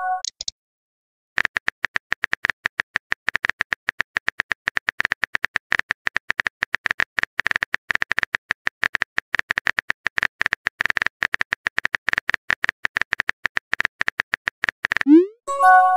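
Simulated phone keyboard typing clicks, rapid and uneven, several a second, as a text message is typed out. Near the end comes a rising swoop and a short bright chime: the message-sent sound.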